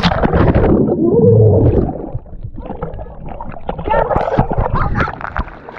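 Splash into lake water and muffled underwater bubbling and gurgling as the camera goes under, with crackling bubbles against the microphone.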